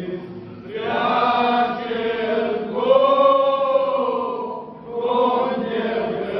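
A group of male carolers singing a Romanian Christmas carol (colindă) together, in long held phrases with two short breaks for breath, one about half a second in and one near five seconds in.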